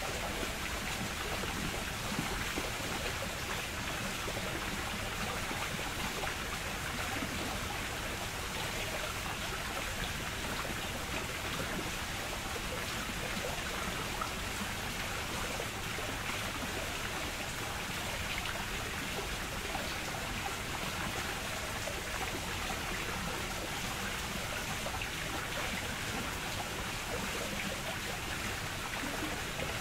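Water from a Japanese garden water wheel and its stream, splashing and trickling steadily.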